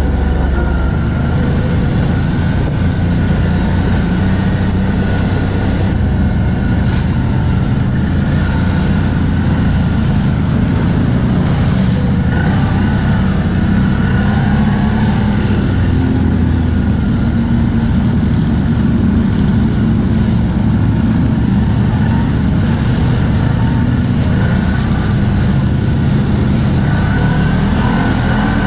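ATV engine running steadily while riding, at a fairly even pace with only small rises and falls in pitch.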